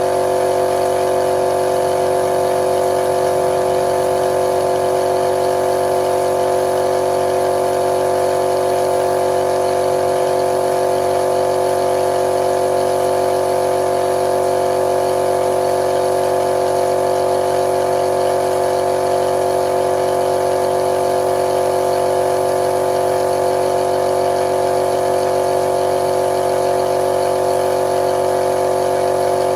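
Electric paint-spraying equipment running continuously: a loud, unchanging motor hum with a strong steady tone.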